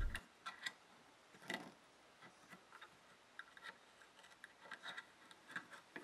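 Faint, irregular clicks of a metal loom hook against the plastic pegs of a knitting loom as loops are lifted up and over the pegs.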